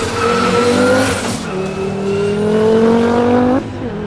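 Audi S2 R hillclimb car's turbocharged five-cylinder engine at full throttle, accelerating hard through the gears. The pitch climbs, drops at an upshift about a second and a half in, climbs again and drops at another upshift near the end.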